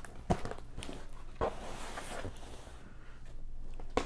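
A screwdriver tip scraping and poking through the packing tape on a cardboard box's seam, slitting it open, with a few sharp knocks against the cardboard and a scratchy tearing stretch about a second and a half in.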